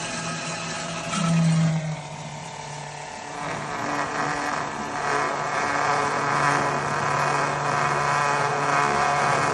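Small electric oil-extractor pump running with a steady hum, sucking engine oil up through the dipstick tube. It swells briefly about a second in, dips, then settles back to a fuller, even hum.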